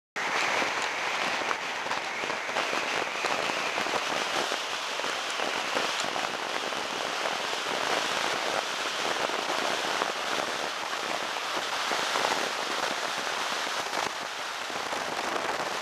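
Loud, steady wind rush on the bare, unshielded microphone port of a Contour ROAM helmet camera riding on a moving car: a dense hissing noise, strongest in the upper range, that starts suddenly.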